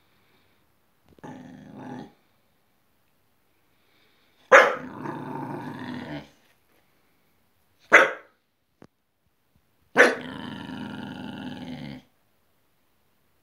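Staffordshire bull terrier growling low, then three sharp barks, about a second apart, the first and last each running on into a couple of seconds of growling.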